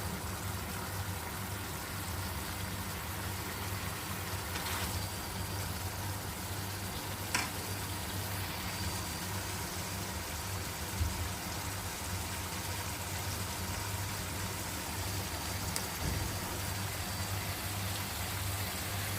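Chicken jalfrezi cooking down in the pan, a steady sizzle over a low hum, with a couple of light clicks. The water is drying off and the curry is turning into a thick gravy.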